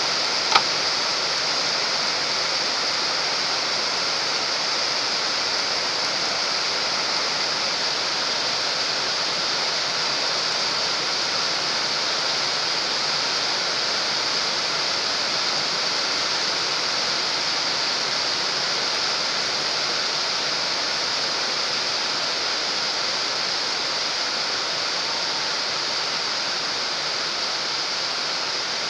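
Steady rain falling on the surface of a pond, an even hiss, with one brief click about half a second in.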